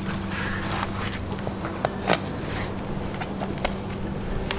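Long fillet knife working through a wahoo's flesh along the backbone: scattered scrapes and clicks of the blade, one sharper click about two seconds in, over a steady low hum.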